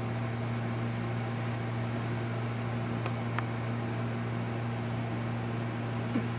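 Steady low room hum over an even hiss, as from a ventilation system, with one faint tick about three seconds in.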